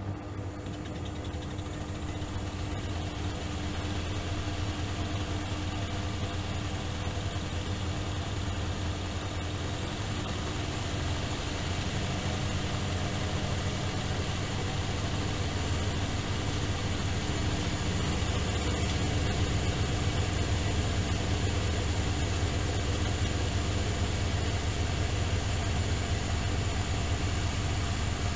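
Miele Softtronic W3923 front-loading washing machine running with its drum spinning, a steady motor hum that gradually grows louder as the spin builds.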